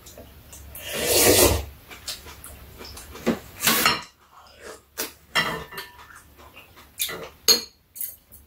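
Close-up eating sounds: a loud slurp of food about a second in and another near four seconds. Chopsticks and spoons click sharply against bowls several times in the second half.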